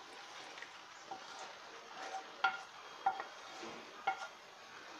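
A spatula scraping fried egg and onion out of one pan into a pan of noodles, with light ringing clinks of metal on the pan rim, the clearest about two and a half, three and four seconds in.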